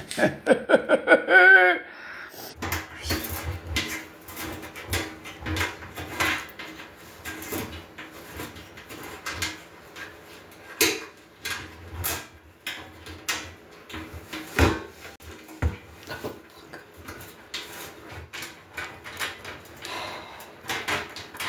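Handling and rummaging noises: scattered clicks, knocks and clunks of objects and parts being moved and set down, a few sharper knocks standing out. In the first two seconds there is a short high-pitched vocal sound that rises in pitch.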